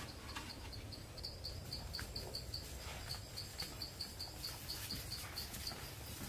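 An insect chirping in a steady high-pitched pulse, about four chirps a second, with faint scattered taps underneath.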